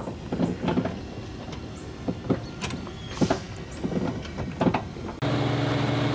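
Scattered light clicks and knocks, then about five seconds in a steady engine drone of the heavy equipment on the work site (crane or boom lift) cuts in suddenly and holds even.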